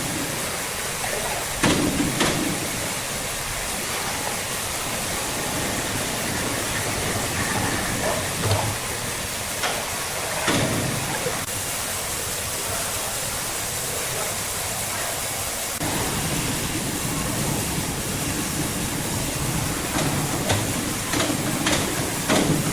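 Sawmill machinery running with a steady noise, broken by occasional knocks and thuds of timber being handled.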